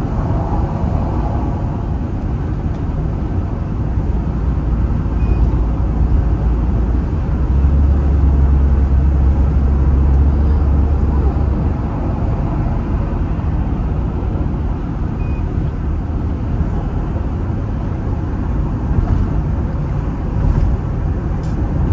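Steady low rumble of tyres and engine inside a moving taxi's cabin. It grows heavier for a few seconds around the middle.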